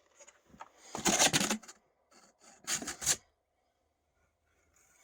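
Firework boxes being handled: two short scraping rubs of packaging, about a second in and again near the three-second mark.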